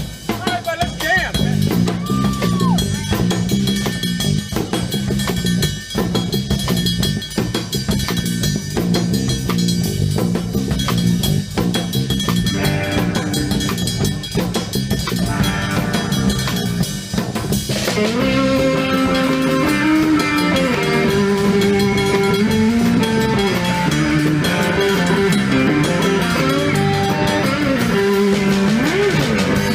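Surf rock band playing: a drum kit beat with bass carries the first part, and an electric guitar melody comes in over it about two-thirds of the way through.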